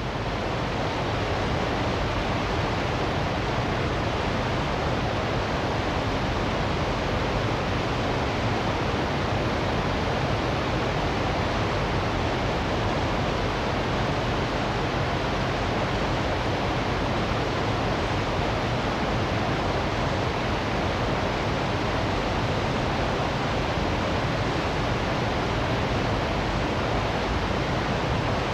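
Niagara Falls: a large waterfall's steady, dense rush of falling water, even and unchanging.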